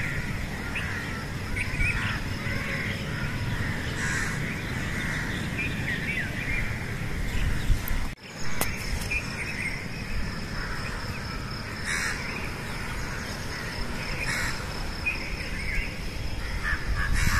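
Crows cawing and other birds chirping over a low rumble. The sound breaks off abruptly about eight seconds in and resumes with the same birds, now with a faint steady high whine behind them.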